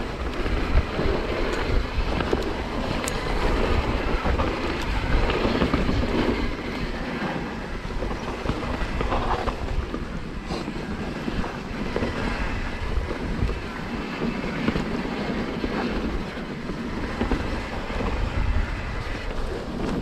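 Mountain bike riding fast down dirt singletrack: wind buffeting the microphone over the tyres rolling on dirt. Small knocks and rattles come from the bike as it goes over bumps.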